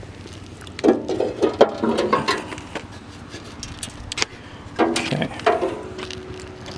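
A metal RV step, aluminum diamond tread with steel support brackets, being handled and turned over on asphalt: clanks and scrapes in two bouts, about a second in and about five seconds in, each with a short metallic ring.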